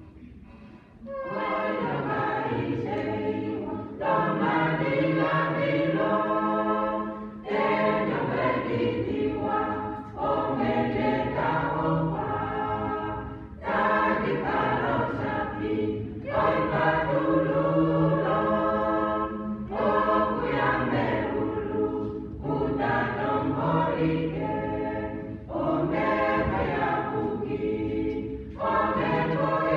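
Mixed-voice church choir of men and women singing a hymn, in phrases of about three seconds with short breaks between them, starting about a second in.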